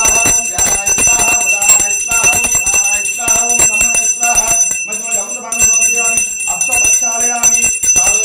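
Temple bell rung rapidly and without a break during a Shiva abhishekam puja, its high ringing tones sustained, with a voice chanting underneath.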